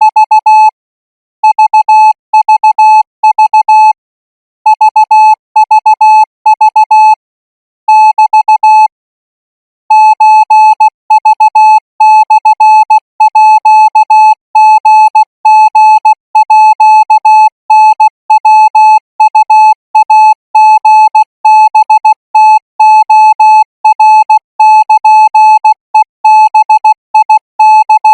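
Thai Morse code practice signal sent at 20 words per minute: a single steady high beep keyed on and off in short dots and longer dashes. A few longer breaks fall in the first third, then the keying runs on without long pauses.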